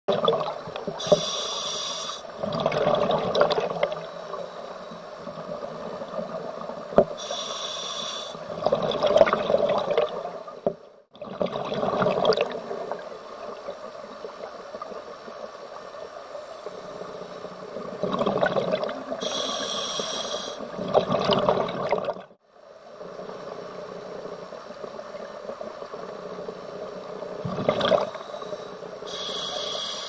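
Scuba diver breathing through a regulator underwater: a short hissing inhalation, then a longer rush and gurgle of exhaled bubbles, four times over.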